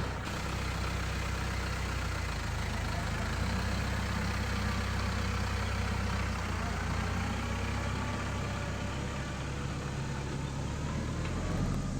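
Farm tractor engine running steadily, its pitch shifting slightly a few times.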